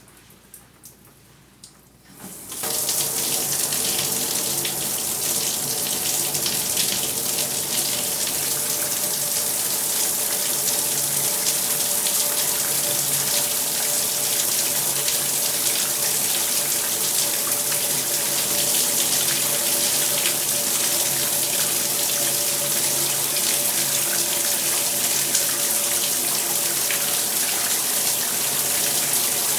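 Shower water comes on suddenly about two and a half seconds in and then runs steadily, a dense spray of water with a few faint steady tones underneath.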